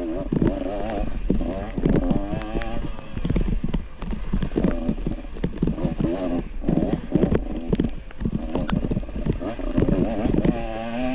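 Dirt bike engine revving up and down, its pitch constantly rising and falling as the throttle works, over a steady low rumble and many sharp knocks and clatters from the bike riding over rough, wet ground.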